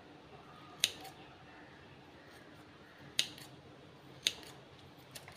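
Scissors snipping boiled citron peel into small pieces: three sharp snips spaced a second or more apart, and a fainter one near the end.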